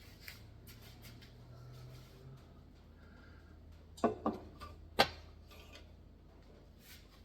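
Three sharp metallic clanks and knocks in quick succession about four to five seconds in, the last the loudest, from parts and tools being handled while the cylinder heads come off a Holden 308 V8 block. A faint low hum sits underneath at the start.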